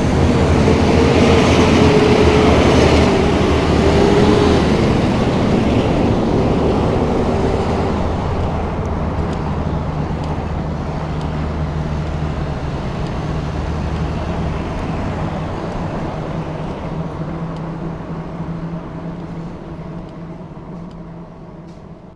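Road traffic passing close by: a steady low engine drone with a whine that slides slightly down in pitch over the first several seconds, then the whole sound fades out gradually.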